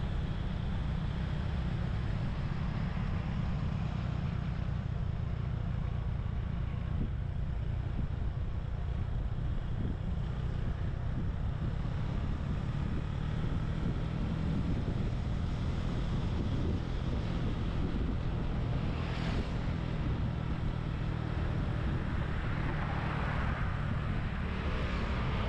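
Steady wind rush buffeting the microphone of a camera mounted on a moving motorbike, over the motorbike's engine and road noise. A short sharp noise a few seconds before the end and a louder swell of passing-traffic noise near the end stand out.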